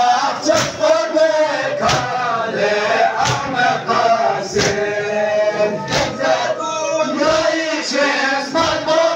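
Men chanting a Balti noha, a Muharram lament, together, over a steady beat of hands slapping chests (matam) roughly every second and a half.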